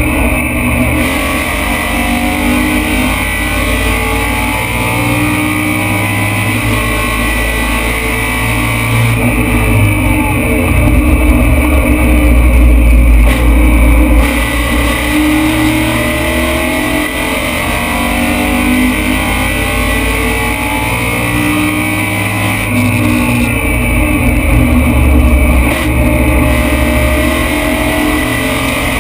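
BMW M3 racing engine heard from inside the cabin at race pace, its revs repeatedly rising and falling with throttle and gear changes. It is loud throughout and loudest around the middle and near the end, under full throttle.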